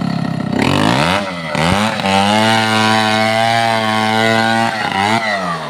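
Two-stroke chainsaw engine revving: it rises about half a second in, dips back, then holds steady at high revs for about two and a half seconds before dropping back toward idle near the end.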